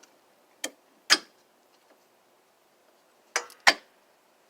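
Four sharp clicks and knocks of hard objects being handled and set down, in two pairs: one about half a second in and again a second in, the other near the end.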